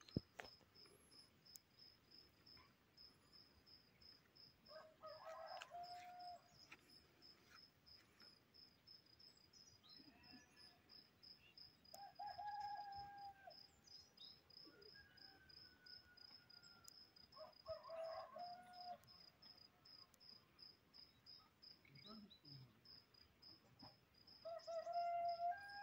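Faint cricket chirping in a steady, even pulse, with a rooster crowing every six seconds or so.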